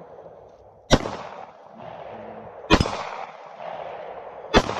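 Three 9mm pistol shots, slow aimed fire a little under two seconds apart, each followed by a short fading echo.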